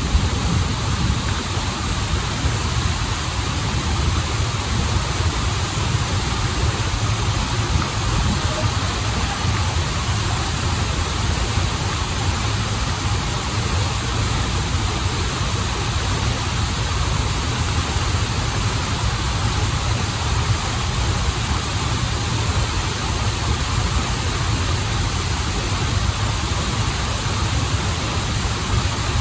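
Waterfall and flowing stream water, a steady rush with a deep rumble underneath.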